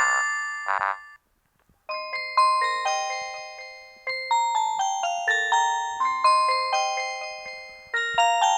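Nokia 3310 3G ringtones playing. One tune ends about a second in. After a short pause the next begins: a melody of single struck notes, each fading away, a few to the second.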